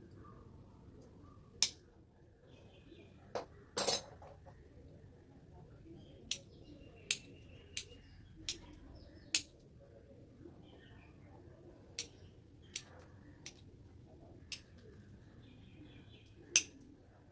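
Garden scissors snipping twigs off a Murraya exotica shrub being pruned into a bonsai: about fourteen sharp snips at uneven intervals, with a quick double snip about four seconds in.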